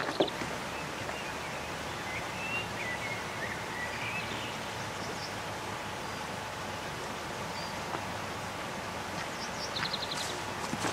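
Steady outdoor background noise in open country, with a few faint bird chirps in the first half and a quick bird trill near the end.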